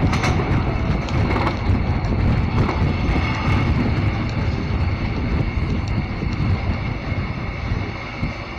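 Passenger train running along the track, heard from an open coach window: a steady rumble of wheels on rails with a few clicks, easing slightly near the end.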